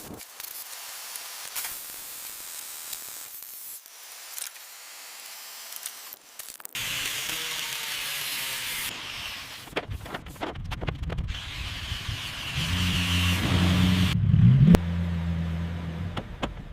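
A rebuild montage of workshop sound effects. A long spray-like hiss comes first, then clanks and clicks from tools, then a car engine running and revving up, cut off by a sharp click near the end.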